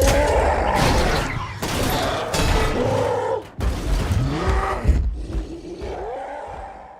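The Hulk roaring: about four separate bellowing roars spliced one after another, each with a rising then falling pitch, the last fading out near the end.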